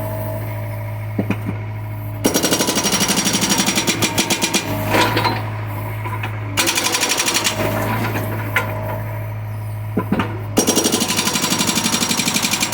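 John Deere excavator's hydraulic breaker hammering in three long bursts of rapid, even blows, over the steady hum of the diesel engine, which runs on alone in the gaps between bursts.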